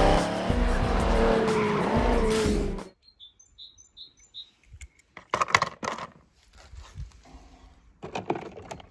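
Animated supercharged muscle car's engine revving hard as it speeds off, cut off suddenly about three seconds in. Then a few bird chirps and scattered clicks and knocks of die-cast toy cars handled in a plastic tub.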